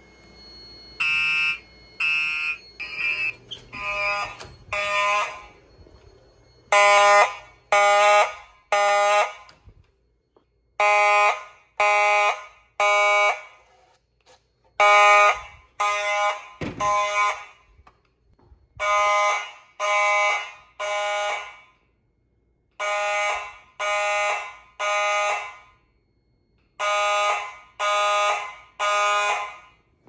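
Gentex fire alarm horns sounding the temporal-three evacuation pattern: loud blasts in groups of three, about every four seconds. Two horns with different pitches run unsynchronized: a higher-pitched one at the start, then a lower one from about four seconds in.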